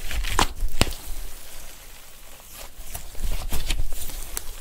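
Hands squeezing and kneading a lump of fluffy slime: soft squelches with sharp crackling pops as trapped air pockets burst. The pops come in clusters near the start and again about three to four seconds in.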